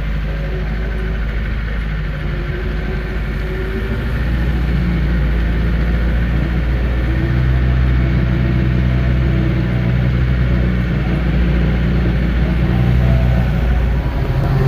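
Engine of a working machine running steadily under light load, getting a little louder and higher in pitch about four seconds in.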